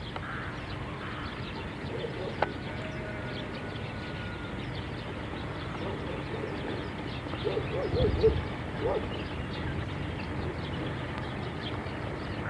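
A few short, low animal calls, a quick cluster about eight seconds in and one more about a second later, over a steady low hum.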